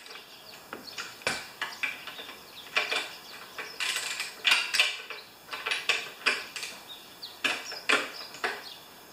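Irregular metallic clicks and scrapes of hand tools working on a lawn mower engine as the carburetor's mounting bolts are tightened down.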